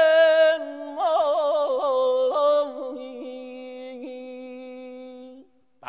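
Male voice singing Persian classical avaz in the Mahour mode. A loud held note gives way about a second in to quick ornamental trills (tahrir), then settles into a long steady note that fades and stops shortly before the end.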